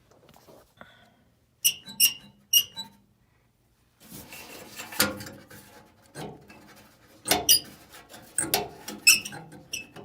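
Repeated short, high squeaks in clusters from the sheet-metal cabinet of a Trane gas furnace as it is handled. The squeak comes from a loose part that a zip screw would hold still.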